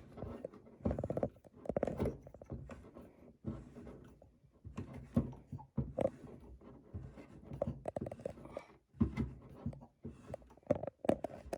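Sight pusher tool being cranked by hand, pressing a night sight into the dovetail of a Glock pistol slide: scattered small metal clicks and scrapes at an uneven pace.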